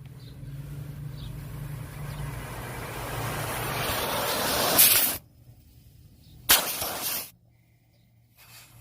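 Nitrogen hissing out through a split AC condenser coil as it is flushed, blowing old compressor oil out of the coil. The hiss builds for about five seconds and cuts off sharply, then comes again as one short blast about a second and a half later.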